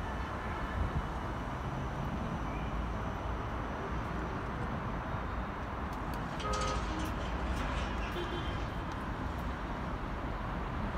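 Steady hum of vehicles and engines at a bus terminal, with a few light clicks around the middle.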